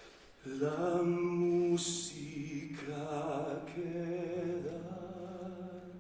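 A man singing slow, sustained phrases with a wide vibrato in a stage musical, four phrases in a row, over quiet orchestral accompaniment with a low held note in the second half.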